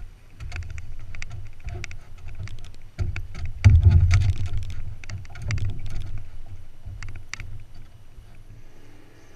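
A hooked shad splashing and thrashing at the surface beside a small fishing skiff as it is swung aboard, with a run of sharp clicks and knocks, loudest about four seconds in, over a steady low rumble.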